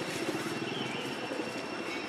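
A motor running steadily in the background, a low pulsing drone with a thin, high steady whine held over it.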